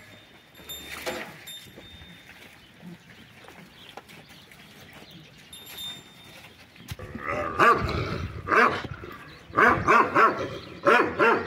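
A dog barking in quick runs of short barks, starting about seven seconds in. Before that there are only faint, scattered sounds.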